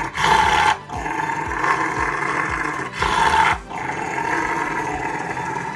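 Large black dog growling in play, a continuous harsh growl with two loud, rough outbursts, one at the start and one about three seconds in.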